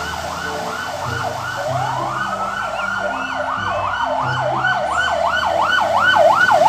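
Fire engine sirens: one in a fast yelp of about three rising-and-falling sweeps a second, quickening and growing louder near the end, while a second siren slowly winds up, holds and winds down across the middle, as the trucks pull out of the station.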